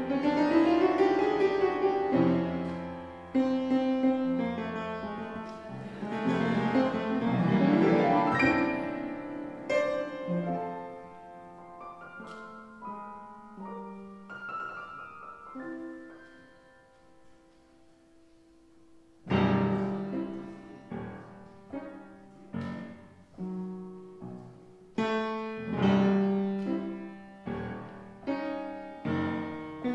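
Solo piano playing live silent-film accompaniment. Full, busy passages thin out to a few soft notes and almost fade away just past halfway, then loud chords come back in and continue in separate struck bursts.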